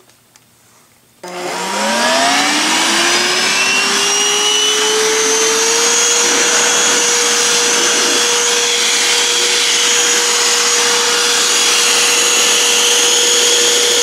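Bissell Bolt Ion XRT cordless stick vacuum switched on about a second in: its motor spins up with a rising whine over several seconds, then runs steadily with a high whine and rushing air.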